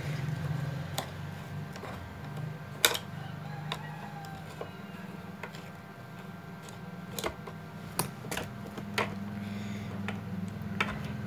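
Scattered sharp metal clicks and taps, one louder knock about three seconds in, from the shuttle assembly of a hand-crank sewing machine as it is worked loose with a long metal rod and then by hand for removal. A steady low hum runs underneath.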